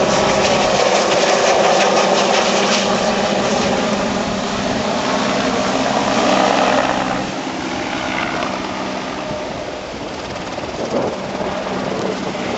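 Helicopter in flight, its rotor and engine running steadily with a loud roar and a humming tone. The sound drops noticeably about seven seconds in.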